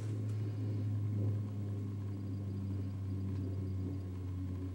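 A steady low machine hum, with a faint series of quick high beeps from about two seconds in until about four seconds in.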